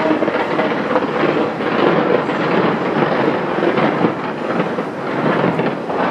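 New Year fireworks display with many shells going off at once: a dense, continuous crackling and banging with no pauses.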